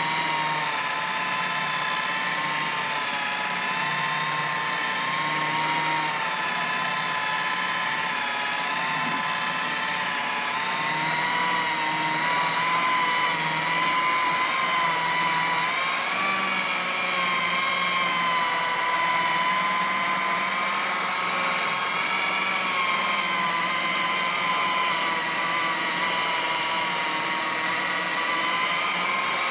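Variable-speed rotary polisher with a wool bonnet buffing polish into aluminum, running steadily. The motor whine wavers slightly in pitch. This is the wool-pad polishing step that smooths out scratches after the cutting wheel.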